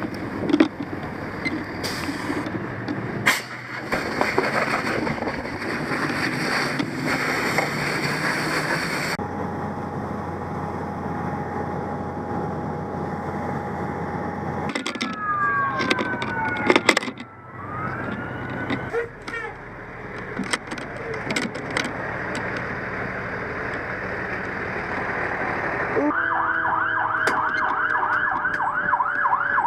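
A steady noisy rush broken by abrupt changes, then about three-quarters of the way through a fire apparatus siren starts yelping rapidly, about four rise-and-fall cycles a second, over a steady lower tone.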